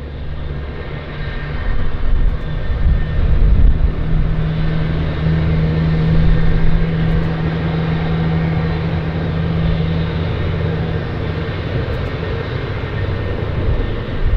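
Jet aircraft engine noise across an airport apron: a steady low drone with a deep hum and a held tone that drops away about eleven seconds in.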